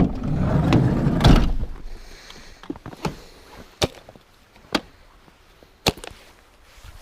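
Outdoor gear being handled: a loud rustling clatter in the first second and a half, then four sharp clicks spaced roughly a second apart, typical of buckles and straps being fastened.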